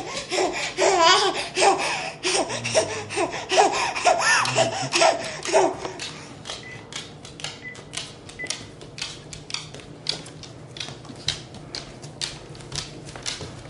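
A toddler laughing and babbling in short, high bursts for about the first six seconds. After that comes a run of light, irregular taps and clicks.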